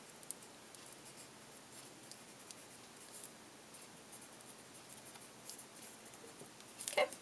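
Paper blending stump, damp with mineral spirits, rubbing over colored pencil on paper in faint, irregular scratchy strokes, blending the pencil out. A louder handling noise comes just before the end.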